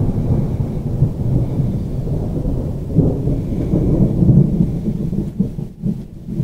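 Thunder rumbling in a long, continuous roll that swells about three seconds in and eases off near the end.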